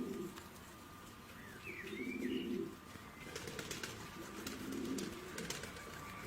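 Pigeon-like low cooing, three coos a couple of seconds apart, with a few short high chirps after the first and some light clicks.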